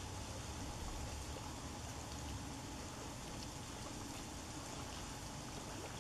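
Steady, even hiss of outdoor background noise with a low rumble underneath and no distinct events.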